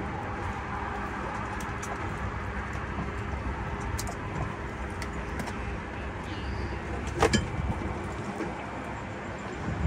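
Steady low rumble of a boat's motor running, with a sharp knock about seven seconds in.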